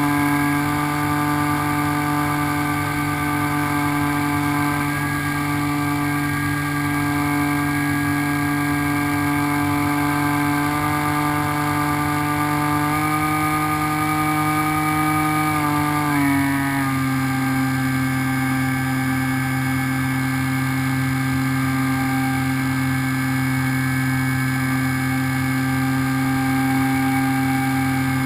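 Electric motor and propeller of an HK Raptor RC plane running steadily in flight, a constant whine made of several pitched tones. About 16 seconds in the pitch slides down a step as the motor slows, then holds steady.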